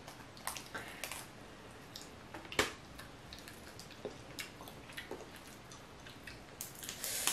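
Boiled crawfish being twisted and peeled by hand, its shell giving faint wet cracks and clicks, with one sharper crack about two and a half seconds in and a quick run of crackling near the end.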